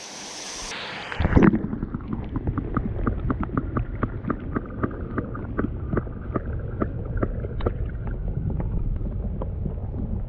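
Rushing water with wind buffeting the microphone, a steady low rumble, over a quick run of small clicks or taps, about three to four a second.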